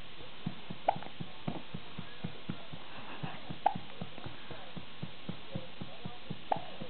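Hiccups: three sharp hiccups about three seconds apart, over a fast run of faint soft clicks.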